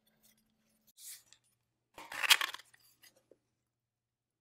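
Metal case and brass mechanism of a Pico adding machine being handled as it is taken apart: a faint scrape about a second in, then a louder short metallic rustle and clink about two seconds in.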